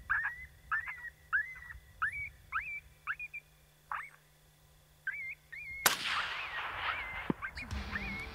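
High whimpering, yipping calls repeat about twice a second and thin out a few seconds in, typical of a predator caller's coyote distress sound. About six seconds in a single rifle shot cracks out and rolls away in a long echo, with warbling calls going on behind it.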